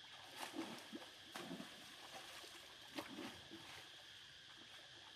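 Soft water splashes and sloshing from macaques swimming in a pool: a few small splashes in the first three seconds, over a steady high hum.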